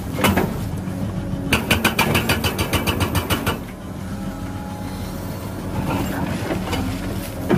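Caterpillar excavator's diesel engine running steadily while its hydraulic breaker hammer pounds rock, with a rapid run of blows, about eight a second, lasting about two seconds in the middle, and a single blow near the start and another near the end.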